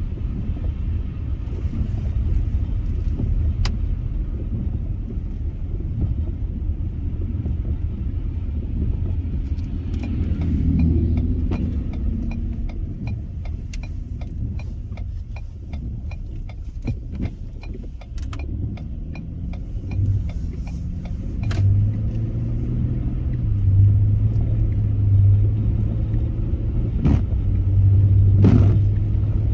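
Car driving on a snow-covered road, heard from inside the cabin: a steady low rumble of tyres and engine. Midway a regular ticking runs for about ten seconds, and toward the end a low hum grows louder.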